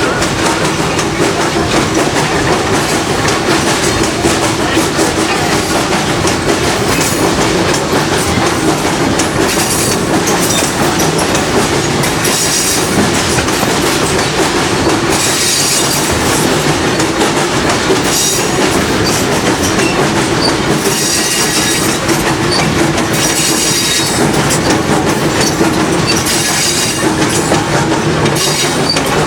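Passenger train coach running along the track: a steady rumble and rail clatter, with brief high-pitched wheel squeals coming and going every few seconds.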